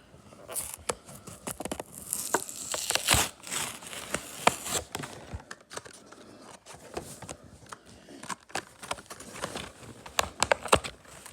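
A Hot Wheels blister pack being torn open by hand: the cardboard card and plastic blister rip and crinkle in irregular bursts, busiest a couple of seconds in.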